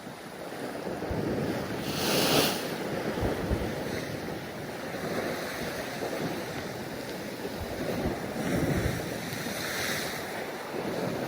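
Sea waves washing against the rocks, with two louder surges about two seconds in and near the end, and wind buffeting the microphone.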